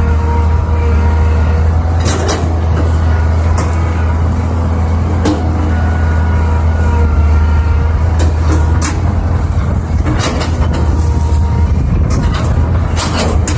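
Tracked hydraulic excavator's diesel engine running under load while digging, a steady low drone. Sharp clanks and scrapes come every few seconds as the bucket works the stony soil.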